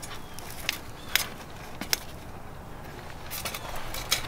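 A wire cage live trap holding a grey squirrel, giving a few sharp metallic clicks and light rattles spaced about a second apart as the trap and the squirrel inside it move.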